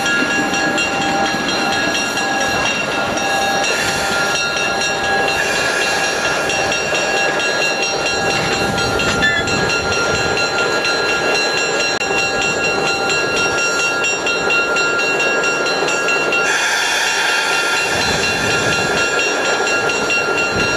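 MLW S-12 switcher's ALCO 539 six-cylinder turbocharged diesel engine running at low throttle: a steady rumble with a steady high whine. A brighter hiss joins about three-quarters of the way through.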